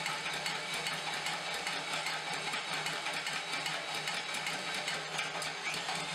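Homemade Hardy Hammer power hammer running, its dies striking a red-hot railroad spike in a fast, unbroken run of blows as the steel is drawn out, over a steady motor hum.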